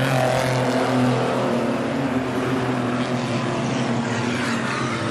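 Several stockcar engines running at race pace at once, a loud steady drone as the pack circles the track.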